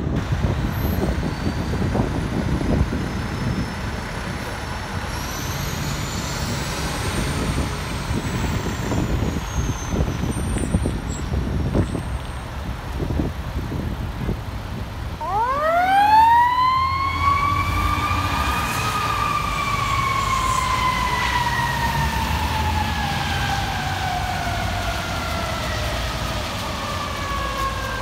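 Fire truck siren winding up steeply about halfway in, then slowly falling in pitch as it winds down, over the low rumble of the heavy truck's diesel engine pulling out.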